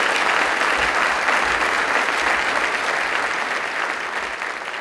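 Audience applauding, a steady dense clatter of many hands that slowly fades toward the end.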